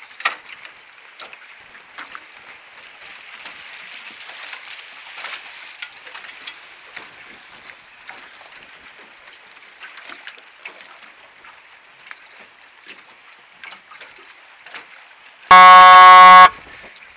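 Steady wind and water noise from a moving motorboat on choppy water, with small splashes and clicks against the hull. About three-quarters of the way through, one loud, steady horn blast about a second long.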